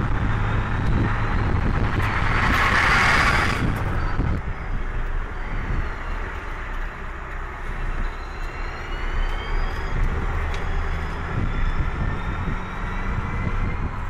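Porsche Formula E race car's electric powertrain whining as it drives, its pitch climbing in the second half as the car accelerates, over a steady rush of tyre and wind noise. A louder rush of noise swells between about two and four seconds in and cuts off sharply.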